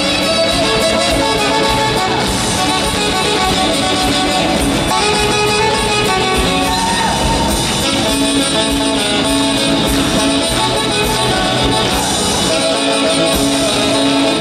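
Live huaylarsh dance music from a band, with wind instruments holding melody notes over strummed guitar, steady and lively.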